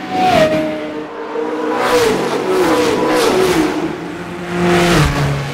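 Several race car engines passing one after another at high revs, each one's pitch dropping as it goes by.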